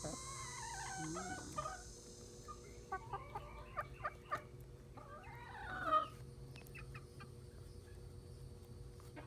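Hens clucking in three bouts of wavering calls, the last and loudest about six seconds in, with short sharp taps of beaks pecking at food on the ground.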